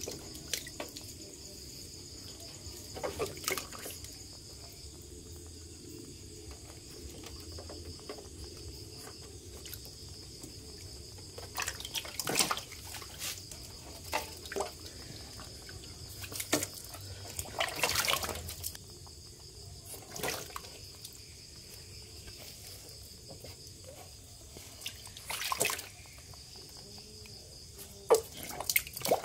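Shallow water splashing and sloshing in a plastic tub as a hand grabs and shifts large frogs, in several short bursts with the longest about two-thirds of the way through.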